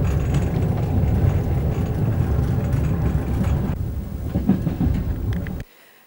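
Passenger train running, heard from inside the carriage: a steady low rumble that cuts off suddenly near the end.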